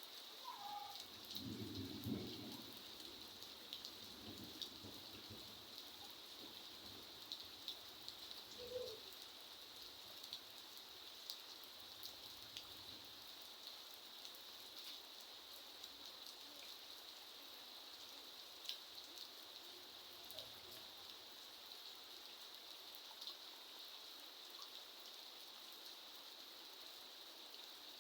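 Steady rain falling, with many drops ticking on a hard surface. A brief low rumble comes about two seconds in.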